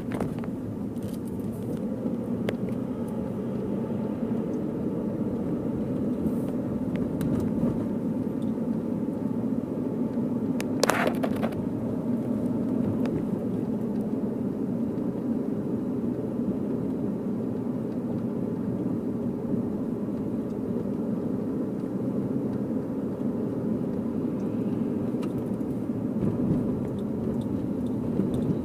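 Car driving along with a steady engine and road rumble, and one short sharp sound about eleven seconds in.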